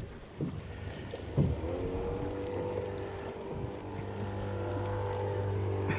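Motorboat engine running at a steady pitch, coming in about a second and a half in and growing slightly louder.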